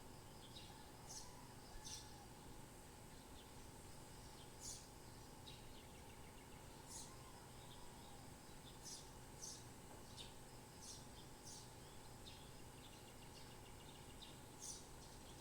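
Birds chirping faintly: short, high chirps scattered irregularly about once a second over a steady background hiss.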